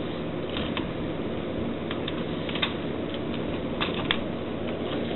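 Scattered small clicks and taps of the plastic parts of a Transformers Railspike figure being handled and moved during transformation, over a steady hiss.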